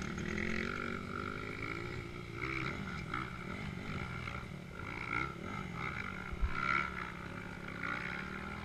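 Dirt bike engines running, with one revving hard as it climbs a steep hill; its pitch rises and falls several times.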